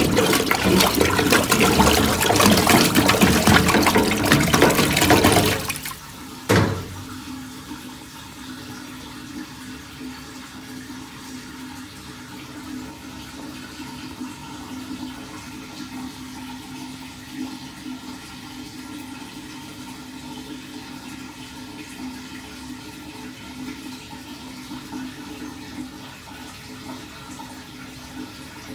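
Water rushing and swirling down a freshly unclogged drain, loud for about six seconds, then stopping abruptly, followed by a single clunk. A steady, much quieter hiss of running water with a faint low hum follows.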